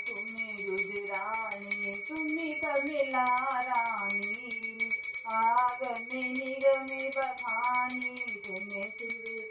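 Small brass puja hand bell rung rapidly and without pause, its high ring steady throughout, while a woman sings a melody.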